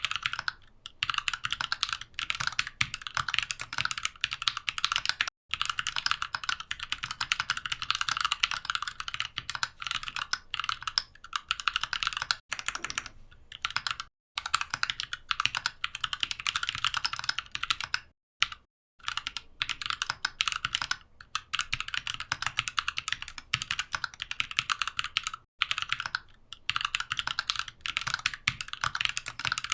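Mechanical keyboard being typed on quickly: a dense run of rapid key clicks, broken by several brief pauses.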